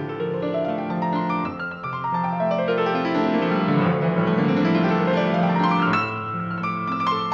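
Grand piano played solo: a fast run of notes sweeps down into the bass and then climbs back up to the high treble, reaching the top about six seconds in, over sustained low bass notes.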